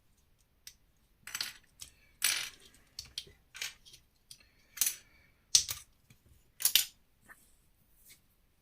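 LEGO pieces clicking and clattering as they are handled and tried on the model: a string of short, irregular plastic clicks, the sharpest a little past the middle.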